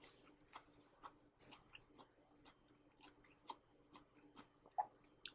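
Faint chewing of crisp dry-fried green beans: small irregular clicks and crunches, with a sharper click near the end, over a faint steady hum.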